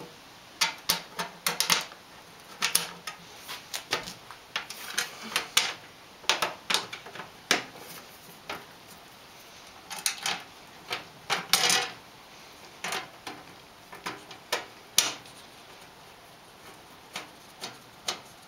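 Irregular sharp metallic clicks and taps, singly and in small clusters, from hand tools, screws and a sheet-metal cover plate being handled during snowblower maintenance.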